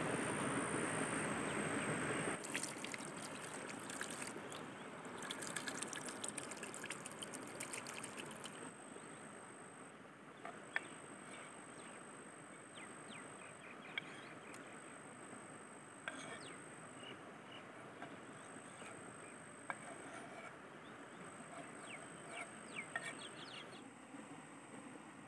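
Sharp knife taps on a wooden cutting board every few seconds as canned button mushrooms are cut, over faint outdoor ambience with a high insect buzz that comes and goes.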